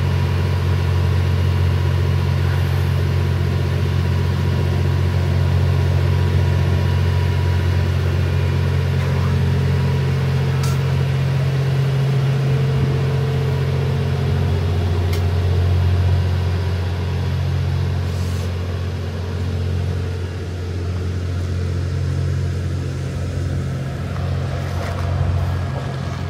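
Twilight Express Mizukaze diesel-electric train (JR West Kiha 87 series) pulling slowly away, its engines giving a steady low hum. The hum eases a little past halfway as the cars roll by, with a few light clicks.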